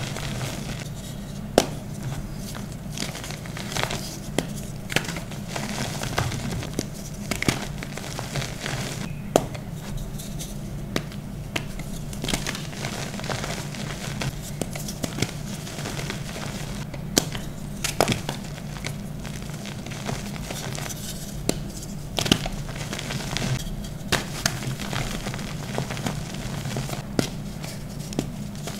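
Hands squeezing, crumbling and sifting dyed gym chalk powder: soft crunching with many scattered sharp crackles, over a steady low hum.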